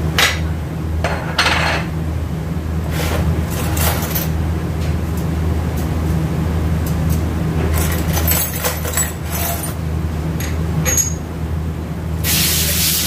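Small metal automatic-transmission parts (thrust washers, bearings, gears) clinking and clattering as they are handled and set down on a steel workbench, over a steady low hum. A loud steady hiss starts near the end.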